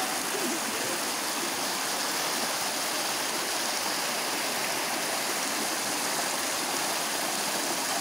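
Fast water rushing steadily down a smooth rock chute of a waterfall, churning and splashing around a person lying in the current.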